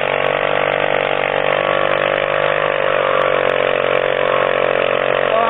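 Motorcycle engine held at steady high revs in a burnout, the rear tyre spinning and smoking against the pavement; loud and unchanging in pitch.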